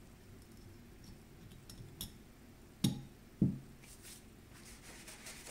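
Faint small clicks and handling noises, then two dull knocks about half a second apart near the middle. This is a shotgun receiver being handled and set down on a towel-covered bench.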